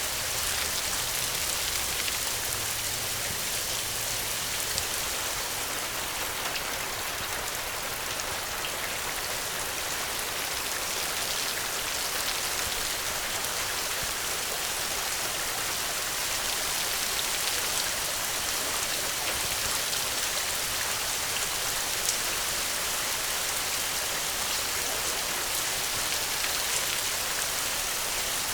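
Steady, even rainfall with dense patter of raindrops hitting surfaces.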